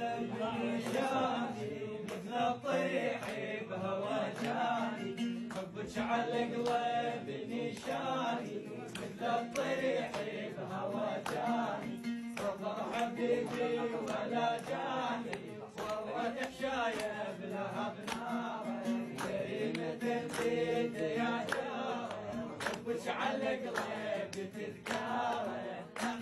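Oud played with a plectrum accompanying a man singing an Iraqi folk song in long, wavering, ornamented phrases.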